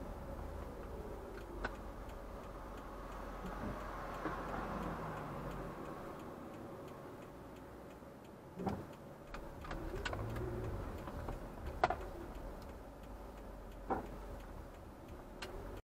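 Low engine and road noise inside a moving car, with slow gliding engine tones, faint ticking and a few sharp knocks, the loudest about twelve seconds in.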